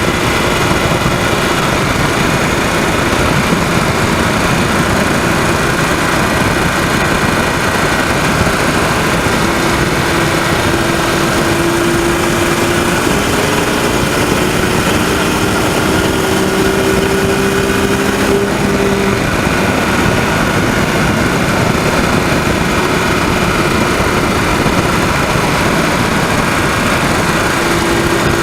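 BMW 130i's 3.0-litre straight-six running under way, heard from the engine bay over wind and road noise, with a few engine tones climbing slowly in pitch past the middle and then dropping away. The owner is chasing a rattling, ticking noise of unknown cause, heard when driving but not at idle, despite new VANOS solenoid valves and fresh oil.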